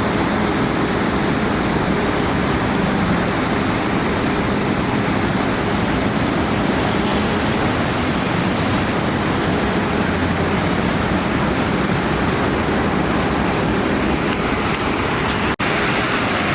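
Water fountain splashing: a steady, even rush of falling water, with a momentary cut-out near the end.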